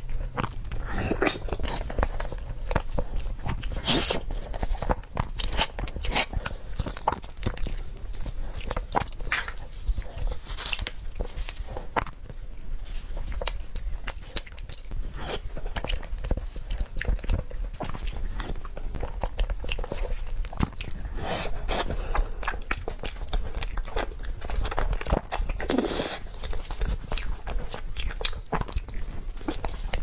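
Close-miked ASMR eating sounds: a person chewing and biting spoonfuls of cream-topped cupcake, with many small wet clicks and smacks.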